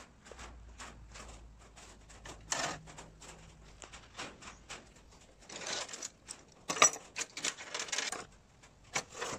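A wooden tool drawer on metal slide rails under a steel welding table being worked: light clicks and knocks throughout, a short rattle about two and a half seconds in, and a louder clatter of the drawer and the tools inside it around seven to eight seconds in.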